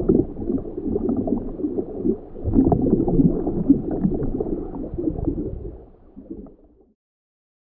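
Muffled underwater water noise picked up through a camera housing, a dense low rush with small bubbling gurgles and ticks, fading out about six seconds in.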